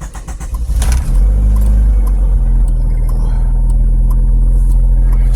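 Turbocharged EJ1 Honda Civic's four-cylinder engine being restarted: it cranks and catches unevenly, then about a second in settles into a steady idle.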